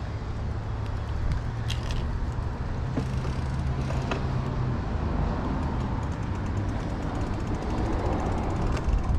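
Wind rumble on the microphone with traffic noise, a steady low hum from about a second in until about halfway, and a few light clicks.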